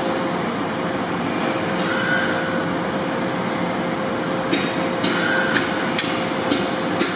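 Steady mechanical hum, with a run of sharp knocks about two a second in the second half.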